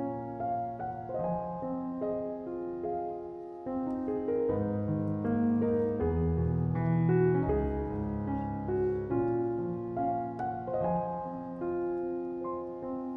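Background piano music, a gentle melody over sustained low chords.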